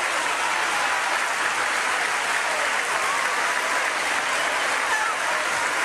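Crowd applauding steadily, with a few faint voices calling out over the clapping.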